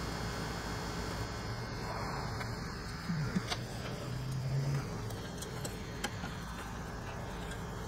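Steady hum of a workshop fan, with a few faint clicks from small parts being handled at the condenser line fitting.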